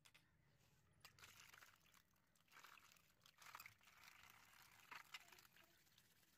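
Faint rinsing of metal hacksaw parts in a plastic tub: water pouring and splashing over them while they are scrubbed with a brush, with a few light clicks.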